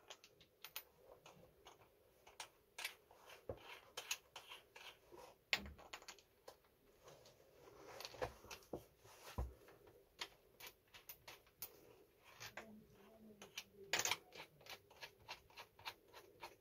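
Scattered light clicks and taps, irregular and faint, of small metal turbine parts such as a bearing and shaft being handled and fitted together, with a few slightly heavier knocks.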